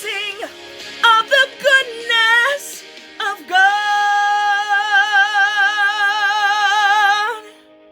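A woman singing a worship song without words: a few short melodic runs, then one long held note with vibrato that stops near the end, over soft sustained backing music.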